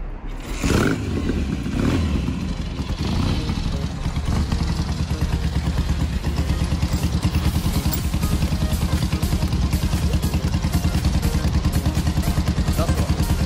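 V-twin chopper motorcycle engine started about a second in, then idling with a steady, even pulsing beat.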